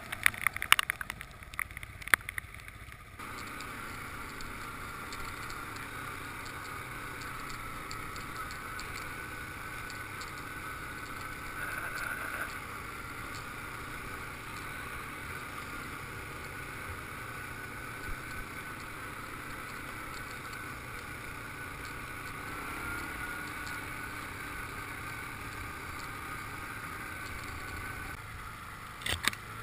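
Quad ATV running steadily while riding over a grassy track. There is a patch of sharp crackling clicks for the first three seconds and again briefly near the end.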